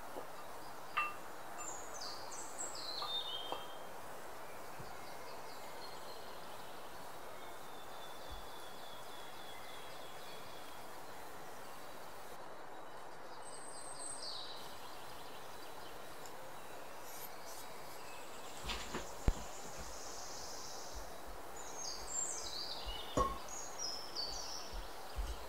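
Low steady background hiss with a few quick falling bird chirps near the start and again near the end. A handful of sharp knocks of a wooden spoon against a glass mixing bowl come in the second half, the loudest about three-quarters of the way in, as dry almond flour is stirred.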